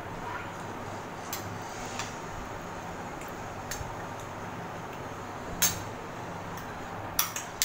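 Spoons and forks clinking against ceramic dinner plates during a meal: single sharp clinks every second or two, the loudest about two-thirds of the way in, then three in quick succession near the end, over a steady low hum.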